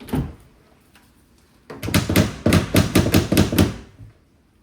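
Tool work on a window lock being fitted: one sharp knock, then about two seconds of rapid knocking, some five or six strikes a second, as the tight lock is worked into place.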